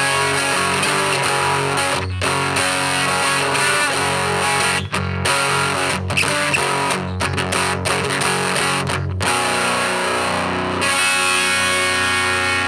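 Single-coil electric guitar played through the home-built McGrath Mini amplifier at its maximum gain setting: distorted chords with a few short breaks between them, then a long held chord that rings out through the last few seconds.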